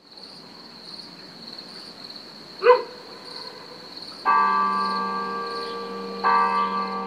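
Church bell tolling, two strokes about two seconds apart starting a little past halfway, each ringing on with a low hum under its higher tones. Insects chirr steadily behind it, and a short loud call cuts in about two and a half seconds in.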